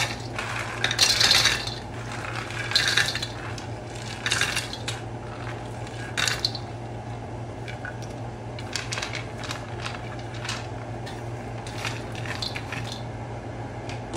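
Cashews tipped from a plate into a metal wok, clattering against the pan in several pourings over the first six seconds or so. Then lighter clicks and scrapes as the nuts are stirred with a wooden spoon.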